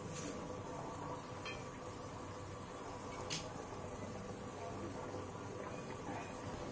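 Thick tamarind curry of dried fish (karuvattu kulambu) bubbling at a steady boil in a steel pot, with a few faint clicks as pieces of dried fish are dropped in.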